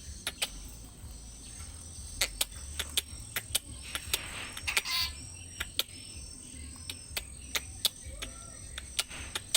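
Short, sharp bird calls repeating irregularly over a steady high-pitched insect drone, with a low wind rumble underneath.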